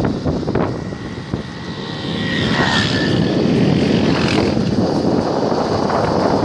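Yamaha R15's single-cylinder engine running while the motorcycle rides along, with wind rushing over the microphone. It grows louder about two seconds in.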